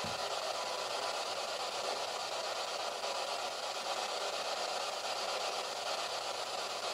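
Steady, even hiss with no distinct event.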